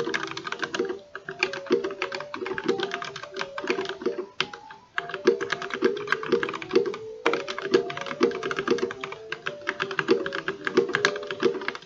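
Fast typing on a GK61 mechanical keyboard with lubed Gateron Yellow linear switches in a wooden case, keys clacking in quick runs with short pauses about a second in and near the middle.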